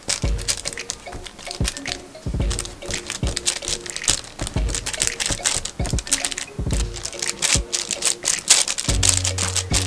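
Fingertips quickly pressing and tapping soft yeast-dough rounds on parchment paper in a metal baking pan: a fast, irregular run of small taps and paper crinkles. Quiet background music plays underneath.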